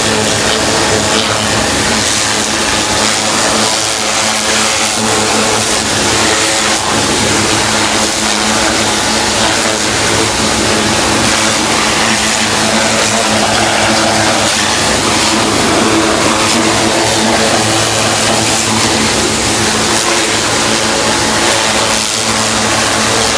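A 2000 psi pressure-washer jet spraying onto a running Honda NSX V6 engine: a loud, steady hiss of water over the engine's even running note.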